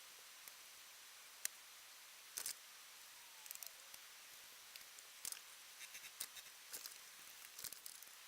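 Faint scattered clicks and light taps over a steady low hiss, some coming in quick little clusters.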